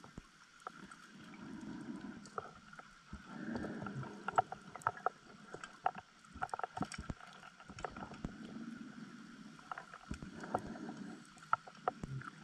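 Scuba diver breathing through a regulator, heard underwater: exhaled bubbles come in rounds every couple of seconds, with scattered clicks and pops between them.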